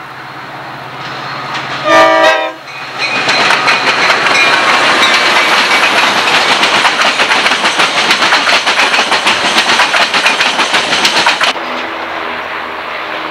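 Amtrak passenger train behind an EMD F40PH diesel locomotive: the engine hum grows as it approaches, the locomotive sounds a short horn blast about two seconds in, then the cars pass close by with a fast, dense clickety-clack of wheels over rail joints. Near the end the sound drops abruptly to a quieter, receding train.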